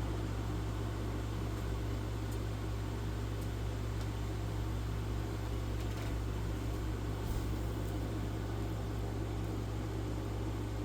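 1994 Dirt Devil Broom Vac model 712 vacuum cleaner running steadily with a constant motor hum.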